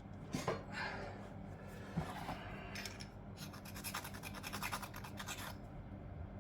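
A hand file scraping a small metal part from an old fuse box, a run of quick strokes lasting about two seconds after the middle, filing through the surface to check whether the metal beneath is copper. A few faint handling clicks come before it.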